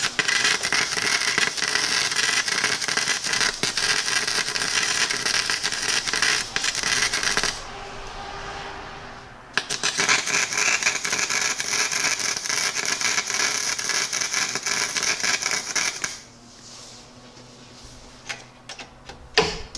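Harbor Freight 90-amp flux-core wire welder crackling on low power as it welds a bolt to sheet steel, in two long bursts of about seven and six seconds with a short pause between. A few small clicks near the end.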